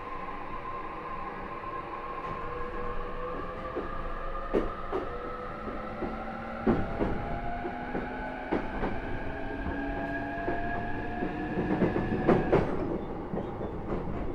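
E233 series 3000 electric train heard from inside the car, its inverter and traction motors whining in several tones that rise slowly in pitch as it accelerates, then cut off suddenly near the end as power is shut off. The wheels click over rail joints and points throughout.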